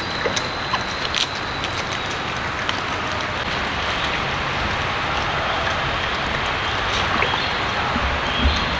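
Steady outdoor background hiss, with a few faint clicks scattered through it and a thin high tone that fades out about two seconds in.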